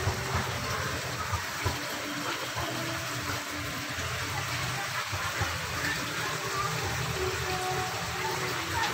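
Steady rush of running water, with faint, indistinct pitched sounds in the background.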